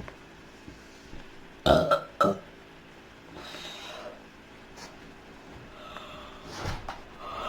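A young woman burping: two loud burps in quick succession about two seconds in, and another near the end, with breathing in between.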